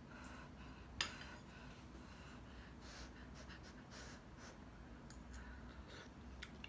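A metal spoon clinks once, sharply, against a ceramic bowl about a second in, followed by a few fainter spoon ticks and soft breathing while hot stew is eaten.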